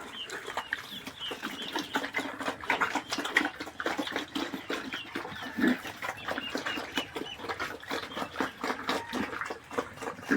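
Pigs grunting and squealing, with a busy clatter of short clicks and knocks among them.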